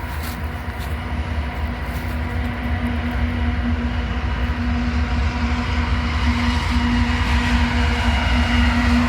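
Freight train's diesel locomotive approaching, its low engine rumble and a steady hum growing steadily louder.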